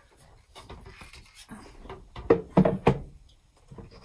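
Hand planes knocking against a wooden wall rack as one is lifted out: light rustling, then three sharp wooden knocks in quick succession about two seconds in.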